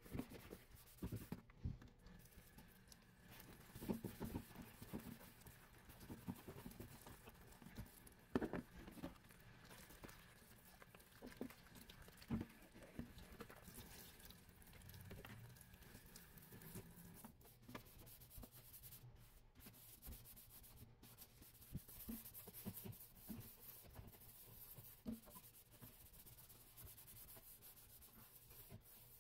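Soapy sponge squeezed and rubbed in sudsy water, giving faint irregular wet squelches and popping lather. These are thicker and louder in the first half and sparse later.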